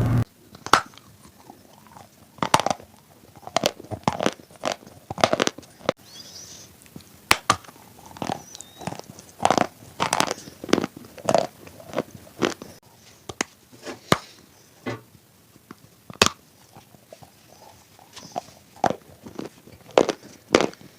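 Close-miked biting and chewing of dry, hard clay: sharp irregular crunches, several in quick clusters with short pauses between.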